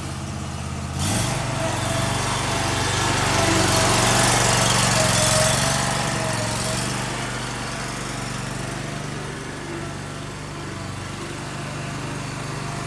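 Walker H38i riding mower's engine running. It speeds up about a second in, is loudest with a rushing hiss through the middle, then settles back to a steady run.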